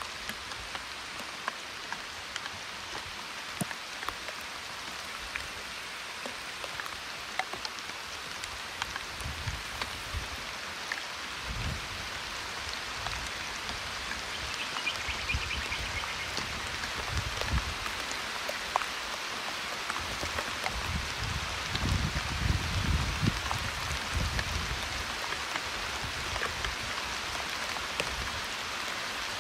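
Steady rain falling on foliage, with scattered sharp drop ticks and occasional low rumbles that are heaviest about two thirds of the way through.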